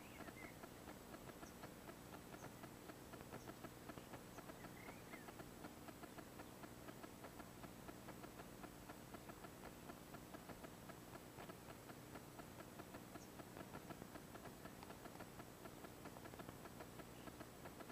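Near silence: the faint, steady crackle and hum of the recording's noise floor, with no distinct sound standing out.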